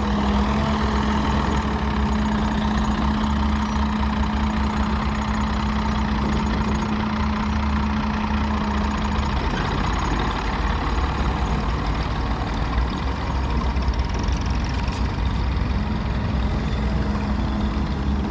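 Diesel engines of an excavator and tractor running steadily while the excavator loads the tractor's trolley, with a steady hum that drops out about halfway through and comes back near the end.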